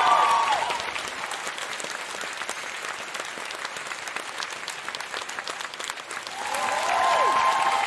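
Large crowd applauding steadily with dense clapping. Cheering voices die away in the first second and swell up again about six and a half seconds in.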